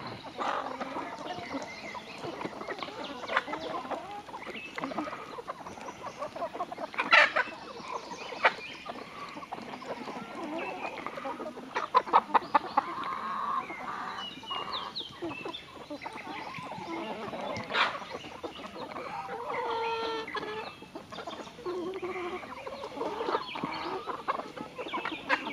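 A mixed flock of chickens clucking and calling as they forage, in short scattered calls. A few sharp clicks stand out, one about seven seconds in and a quick run of them about twelve seconds in.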